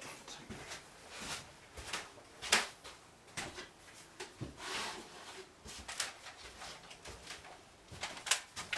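Irregular clicks, taps and knocks of small parts being handled and fitted on a workbench, with a short scrape about five seconds in.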